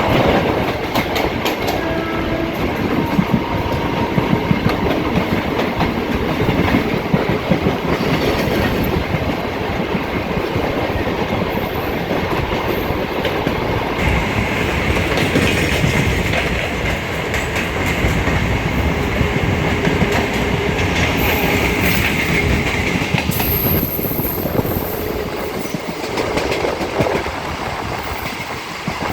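Electric multiple-unit suburban local train running at speed, its wheels clattering over rail joints under a steady rolling roar.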